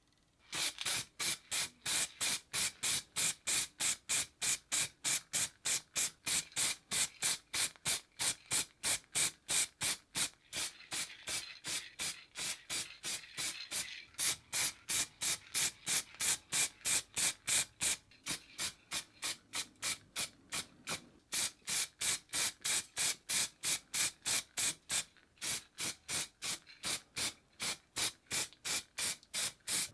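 Aerosol spray can of primer spraying in quick short bursts, about three a second, each a hiss, with a few brief pauses along the way.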